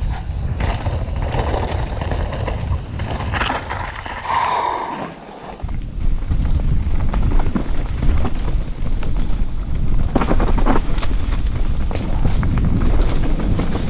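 Wind noise on a GoPro action camera's microphone, mixed with the rattle and tyre noise of a mountain bike descending a rough trail. The noise dips briefly about five seconds in and then comes back louder.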